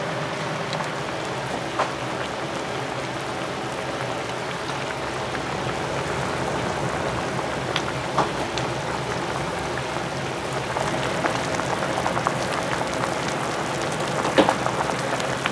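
Food cooking on a kitchen stove: a steady hiss of sizzling and bubbling, with a few light clicks and knocks from utensils scattered through it.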